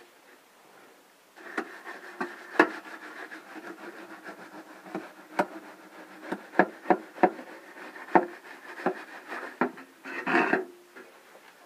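A 6-foot metal stud used as a screed, scraped back and forth across wet concrete, starting about a second in. It makes a gritty rasp broken by many sharp clicks and knocks, with a louder stretch of scraping near the end.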